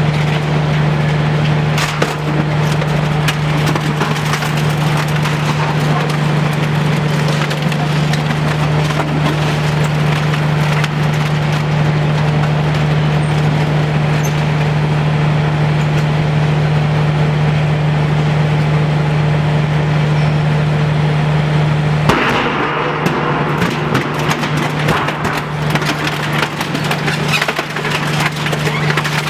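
Twin-shaft shredder running, its cutter discs crunching and crackling through fed material over a steady drive hum. About three-quarters of the way through, the hum cuts off abruptly and the crunching turns rougher and more uneven.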